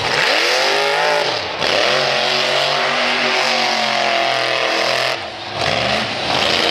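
Monster truck engine revving, its pitch rising and falling as the truck spins in the dirt. The engine note drops off briefly twice when the throttle is lifted, about a second and a half in and again just after five seconds.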